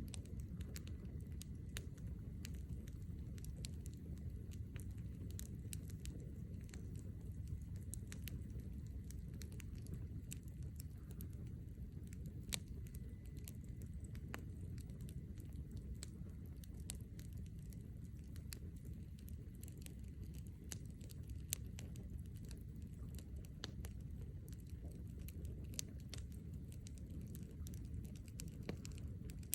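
Campfire crackling: faint, scattered sharp pops and snaps of burning wood over a steady low rumble.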